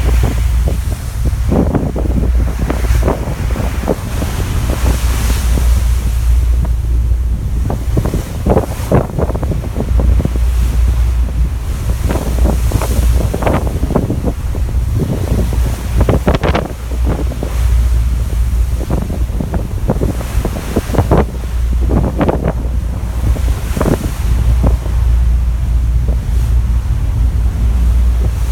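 Wind buffeting the microphone on a car ferry under way: a steady low rumble broken by irregular gusts, over the rush of sea water.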